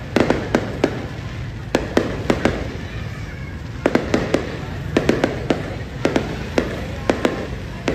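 Aerial fireworks bursting: a rapid, irregular run of sharp cracks and bangs, about three a second in clusters, over a steady low rumble.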